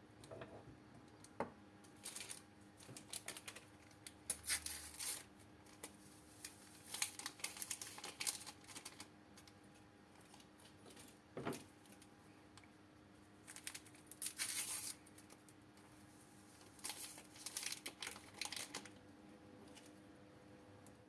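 Intermittent rustling and crinkling of something being handled in short clusters, with a few light clicks, over a faint steady hum.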